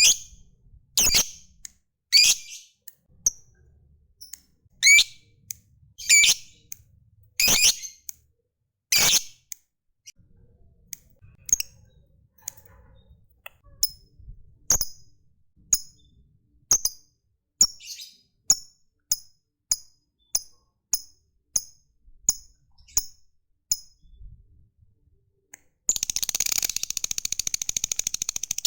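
Lovebird calling: loud, sharp shrieks about every second for the first nine seconds, then shorter, softer chirps about once or twice a second. Near the end it breaks into a fast, continuous chattering trill, the long 'ngekek' song that lovebird keepers prize.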